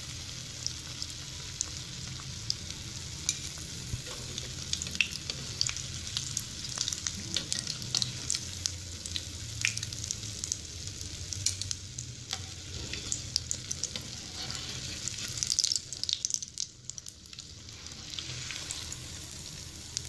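Egg-coated bread pakoras frying in hot oil in a pan: a steady sizzle with frequent small crackling pops, dying down for a moment about sixteen seconds in.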